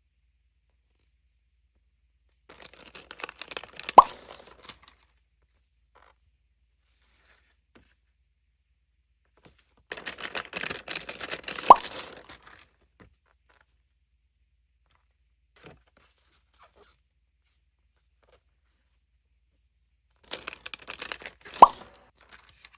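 Plastic packaging being torn open three times, each a couple of seconds of crinkly tearing that ends in one sharp snap as the wrapper gives way.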